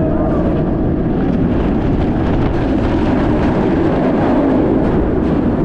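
Strong wind buffeting a body-mounted action camera's microphone: a loud, steady low rumble.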